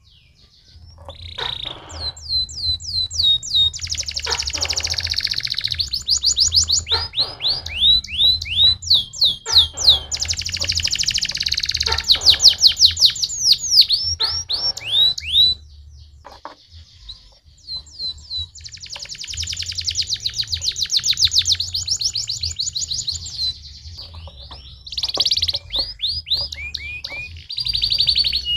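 Canary singing: long rapid trills of fast-repeated falling notes, phrase after phrase, with a short pause about halfway through, over a faint low hum.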